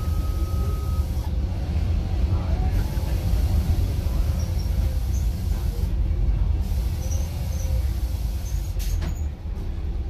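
Iveco bus's diesel engine and drivetrain running under way with a steady low rumble, heard from inside the cab as the eight-speed manual gearbox is worked into fifth gear. A single short click sounds near the end.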